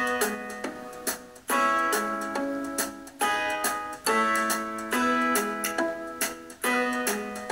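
Background music: plucked string chords struck every one to one and a half seconds, each ringing and fading.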